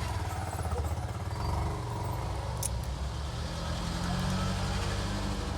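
Low steady engine rumble of a motor vehicle passing on a road, swelling and easing, with one sharp click about two and a half seconds in.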